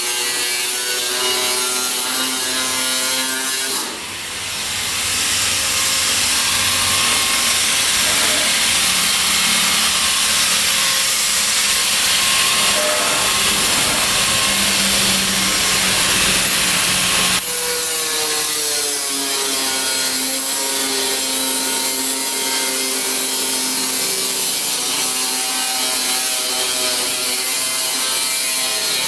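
Steel plate being cut, with a continuous, loud metal-cutting sound. A ringing, pitched screech gives way about four seconds in to a harsher, hissing grind, which switches back to the ringing screech about two-thirds of the way through, its pitch sliding down briefly.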